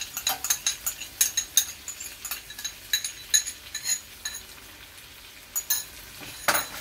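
Metal spoon scraping and clinking against a ceramic bowl as thick yogurt is spooned out into a steel kadai: a quick run of small ringing clicks, then a louder knock near the end.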